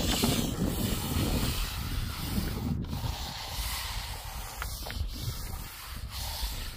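Steel hand trowel scraping and rubbing across a wet cement roof layer as it is spread and smoothed, in short stretches, with wind rumbling on the microphone at first.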